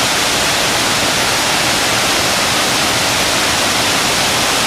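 Thi Lo Su waterfall: the loud, steady rush of water pouring down in many streams.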